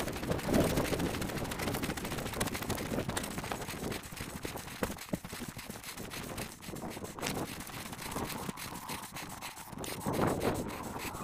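Wind buffeting the microphone, a steady rumbling haze broken by irregular rustles and knocks.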